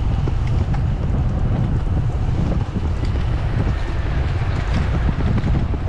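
Wind buffeting the microphone of an onboard camera on a racing bicycle moving at speed: a steady, dense rumble.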